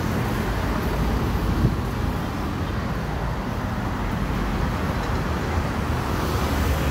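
Steady noise of heavy multi-lane highway traffic passing, with a strong low rumble. A brief knock comes about one and a half seconds in.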